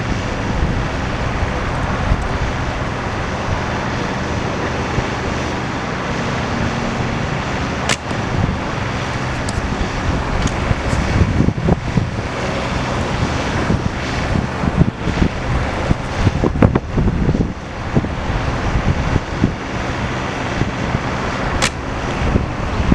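Strong wind buffeting the camera microphone, a steady rumbling roar that gusts harder in the second half. Two sharp clicks cut through it, one about a third of the way in and one near the end.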